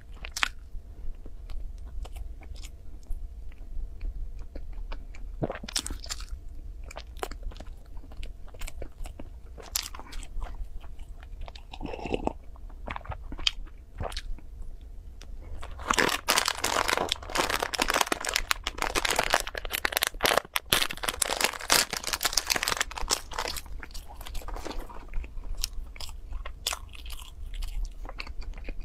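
Close-miked eating sounds: a soft bun with a crumbly crust being bitten and chewed, with wet mouth clicks and smacks. For several seconds past the middle there is a dense stretch of crackling.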